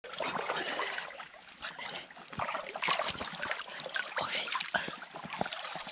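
Shallow creek water splashing and sloshing as someone wades and sweeps a dip net through it, a string of small irregular splashes.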